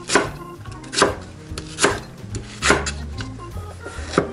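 Chef's knife cutting through a large green onion on a wooden cutting board, then into a king oyster mushroom near the end: five separate chops, about one a second.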